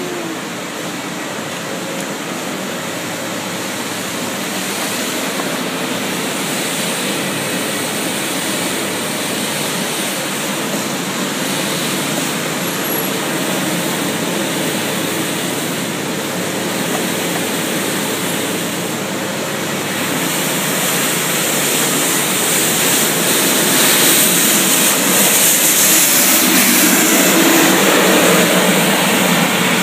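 Mechanical street sweeper running, its engine and rotating brushes making a steady noise that grows louder about two-thirds of the way through as it comes close and passes.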